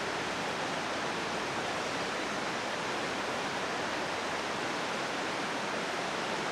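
Steady rush of a rocky river's whitewater rapids, from a camcorder tape recording.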